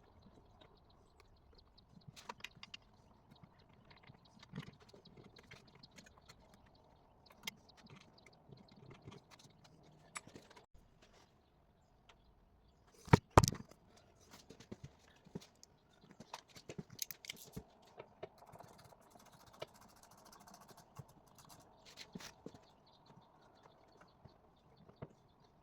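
Scattered light clicks and clatters of tools and metal parts being worked on, with a sharp, loud double knock about 13 seconds in.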